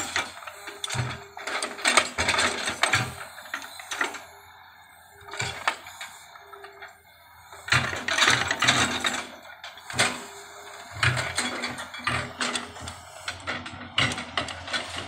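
Excavator working soil: irregular metallic clanks and scraping bursts, with a whine that comes and goes.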